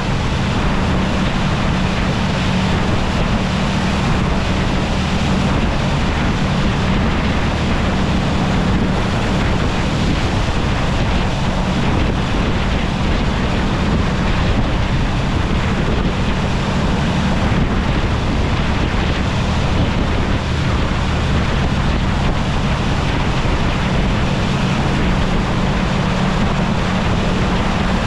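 Saen Saep canal express boat under way: its diesel engine running at a steady pitch, with water rushing past the hull and wind buffeting the microphone.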